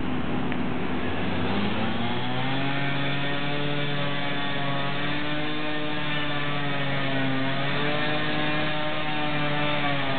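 Steady engine drone from an unseen machine, a low hum with overtones that rises slightly in pitch about two seconds in and then holds, wavering a little.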